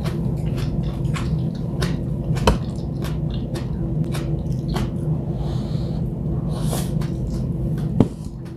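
Close eating sounds: chewing with small wet mouth clicks and chopsticks against dishes, over a steady low hum. Two sharper knocks, the louder near the end as a rice bowl is set down on the table.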